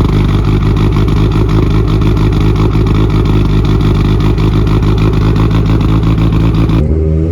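Mitsubishi Lancer Evolution's turbocharged four-cylinder engine running under load at steady revs. Near the end the revs drop and then begin climbing again.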